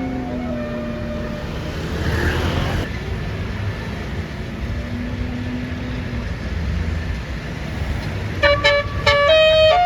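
Traffic and engine rumble, then near the end a bus's multi-tone 'telolet' horn starts playing a tune: a few short toots, then longer held notes that step between pitches.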